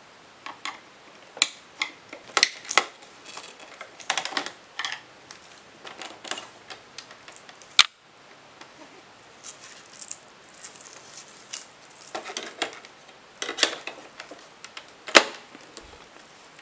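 Clicks, knocks and light rattles of an LG monitor's plastic and metal stand parts being handled and taken apart, with a screwdriver pressing the release tab. Two sharp, loud clicks stand out, one about eight seconds in and one near the end.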